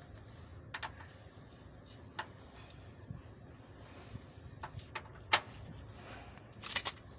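Scattered clicks and knocks of hand tools and parts in a truck's engine bay during a fan belt and tensioner change. The sharpest knock comes just past the middle, and a quick cluster of clicks comes near the end.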